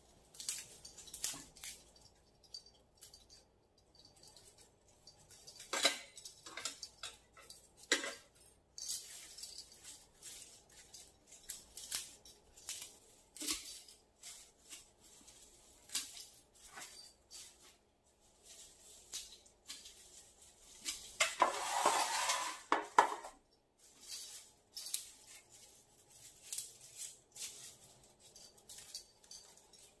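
Hands arranging cut sneezeweed stems in floral foam inside a galvanized metal bucket: a run of light clicks, taps and clinks as stems are handled and pushed in. About two-thirds of the way through there is a longer, louder rustle of the leafy stems.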